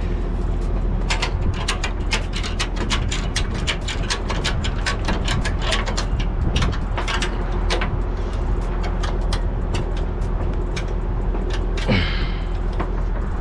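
Ratchet strap being cranked down over a pickup's wheel on a car-hauler deck: a run of sharp metallic clicks from the ratchet, several a second, over a steady low rumble.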